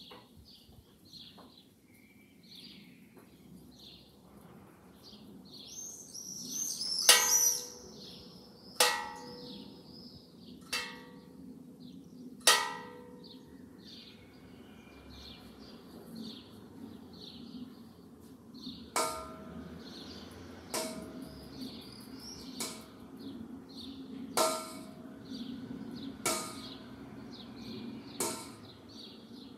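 Bells striking the hour: four ringing strokes about two seconds apart, then after a pause six strokes at the same pace on a slightly higher-pitched bell, the six tolling six o'clock in the evening. A brief rising hiss comes just before the first stroke.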